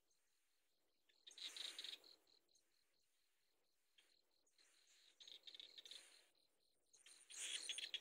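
Hungry nestlings begging from the nest in three bursts of rapid, high chirping calls: about a second in, around five seconds in, and near the end. A faint steady high pulsing trill runs underneath.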